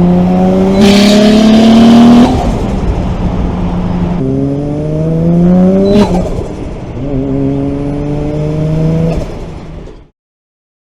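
Turbocharged 1JZ-GTE straight-six revving up under hard acceleration through the gears. The pitch rises in pulls, with gear changes about two and six seconds in, and a burst of turbo flutter comes as the throttle lifts for each shift. The sound cuts off abruptly about ten seconds in.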